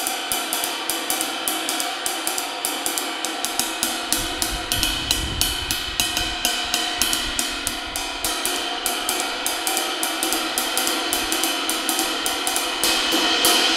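Hand-hammered 22-inch Levite ride cymbal struck steadily with a wooden drumstick, about four strokes a second, over a shimmering wash that swells louder near the end. This is a sound test after a repair that cut the cracked section out of the cymbal's edge.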